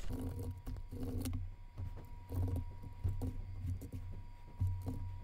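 Typing on a computer keyboard: irregular keystroke clicks and soft thuds, with a faint steady whine behind them.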